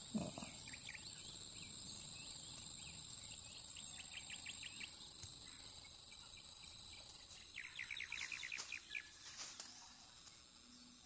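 Insects shrilling steadily at a high pitch, with a bird giving quick runs of short chirps about four seconds in and again near eight seconds.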